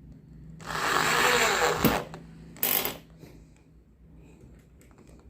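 Power drill driving a big screw into a wooden board of a flat-pack coffee table: one run of just over a second, then a brief burst a moment later.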